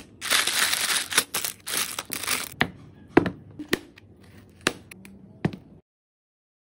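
A crinkling, tearing rustle for about the first two and a half seconds, then a knife chopping ginger on a cutting board in about five sharp, separate taps. The sound cuts off suddenly near the end.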